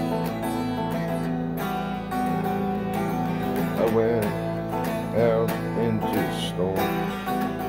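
Music: the instrumental opening of a song, a strummed acoustic guitar, with a wavering melody line coming in over it from about four seconds in.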